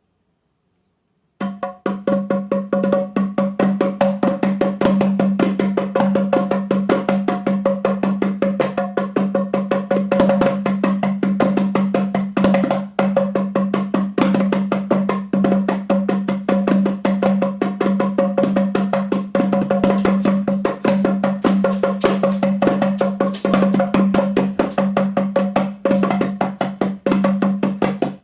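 African hand drums struck with bare hands in a fast, dense, unbroken rhythm, with a steady ringing drum tone under the strokes, starting about a second and a half in.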